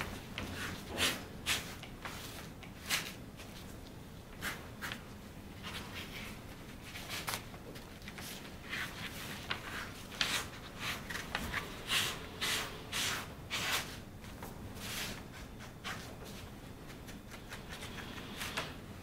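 A sponge rubbing leather dye onto a thin leather strap: irregular wiping and scrubbing strokes, busiest in the middle.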